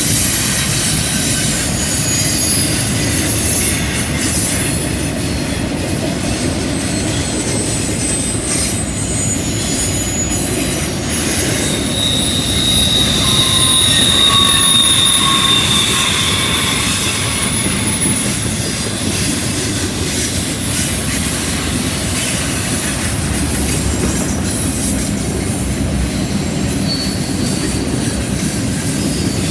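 CN freight train rolling through a curve: a steady rumble of wheels on rail with high, thin wheel squeal from the curve, loudest about 12 to 16 seconds in.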